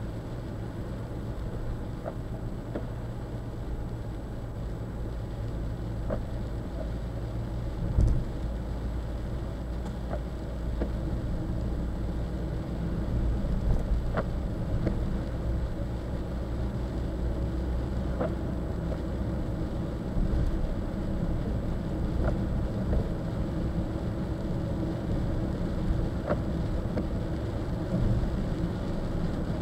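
Car driving in rain, heard from inside the cabin: a steady low road and engine rumble. Light ticks come every few seconds, with one louder thump about eight seconds in.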